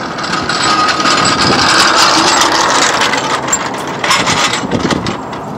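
Engine noise that swells and then eases off, with a few light clicks near the end.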